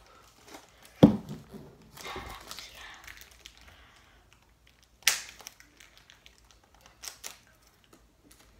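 A small plastic container being opened from its pack: a loud knock about a second in, crinkling of plastic after it, a sharp click about five seconds in and lighter clicks near the end.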